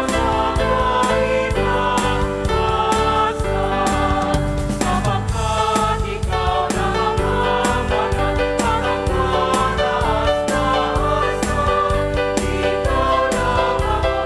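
Christian worship music with singing over a steady beat.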